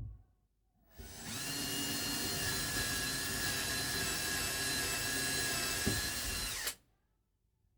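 Power drill running steadily for about six seconds, with a motor whine, then winding down and stopping. A short knock comes just before it starts.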